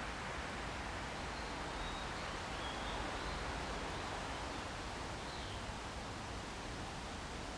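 Steady outdoor background hiss with a few faint, short bird chirps.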